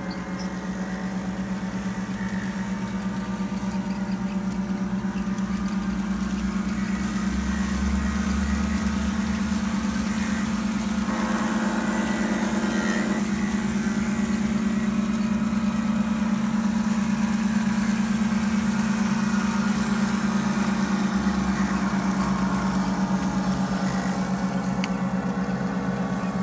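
Homemade electronic diesel-locomotive sound generator playing a synthetic diesel engine rumble through a speaker, pulsing steadily and growing a little louder over the first several seconds.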